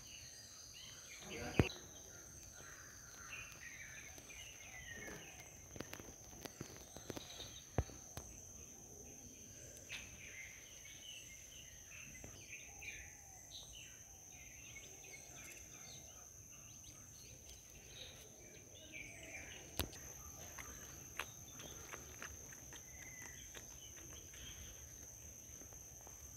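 Faint outdoor garden ambience: a steady high-pitched insect drone with scattered bird chirps, and a few sharp clicks from handling the phone.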